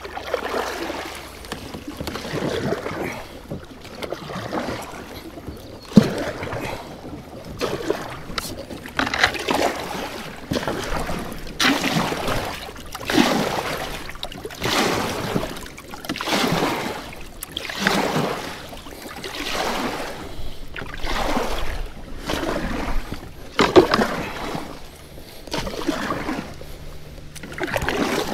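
Kayak paddle blades dipping and pulling through river water in steady alternating strokes, a swishing splash about every one and a half seconds. Two sharp knocks stand out, about six seconds in and again about twenty-four seconds in.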